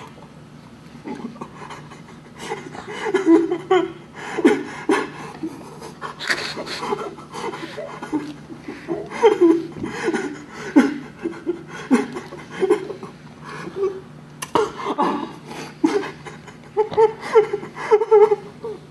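Rapid, irregular nonverbal vocal sounds: short panting and laugh-like grunts, one after another with sharp breathy bursts between them.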